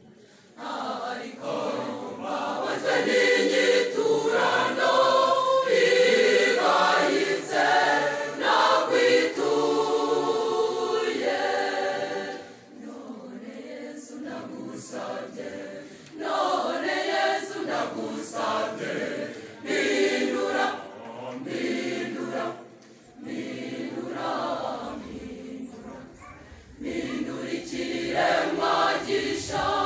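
Mixed youth choir of girls and boys singing a hymn together without instruments, in sung phrases that drop quieter briefly around halfway and again a few seconds before the end.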